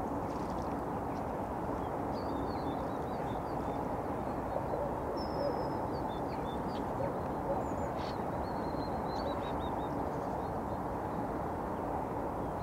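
Steady hum of road traffic carrying across the river, with small birds calling in short, high chirps throughout. A low, steady drone fades out about two seconds in.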